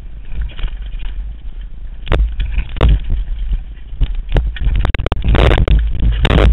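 Downhill mountain bike clattering over a steep rocky trail, with sharp knocks as the wheels strike rocks, then a loud scraping clatter near the end as the rider crashes onto the rocks.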